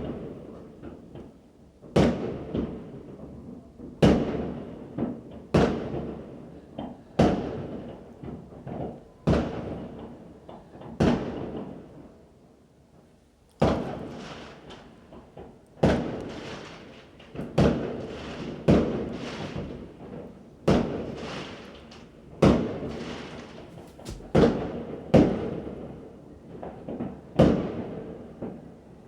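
Fireworks going off, a sharp bang every second or two, each trailing off in an echo, with clusters of smaller pops in between.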